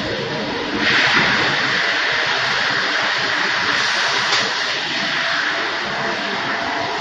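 Industrial wide-belt sanding machine running with a loud, steady roar, which grows louder about a second in.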